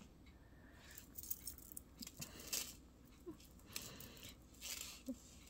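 Faint, scattered clinks and jingles of a metal articulated fish pendant and its chain being handled and turned over.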